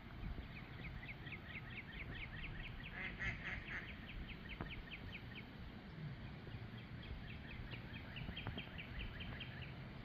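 Resting mallards making soft quacking calls, with a fast, even series of short high chirps that pauses briefly around the middle.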